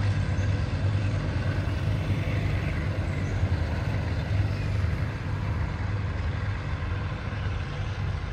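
Diesel-electric locomotive (aging GE GEA-class No. 4528) running under power as it pulls its train away, a deep steady engine hum that fades slowly as it draws off.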